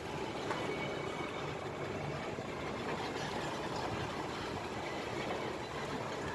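A vehicle engine running steadily, an even rumble with no speech.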